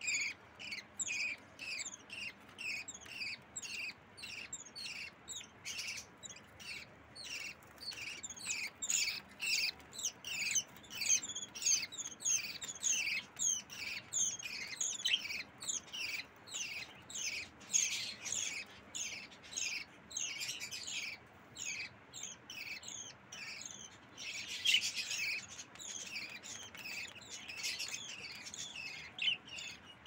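Budgerigar chicks giving their begging calls: rapid, repeated high chirps, about three a second without a break, with a denser flurry near the end. The calls are the fledglings demanding food from an adult budgie.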